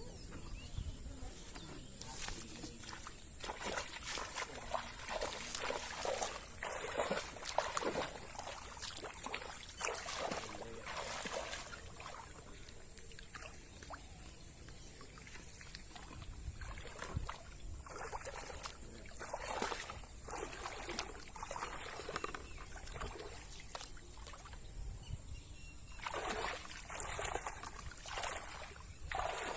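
Water trickling and sloshing in irregular splashes, as from hands or traps being moved in shallow water. A steady high-pitched hiss runs underneath.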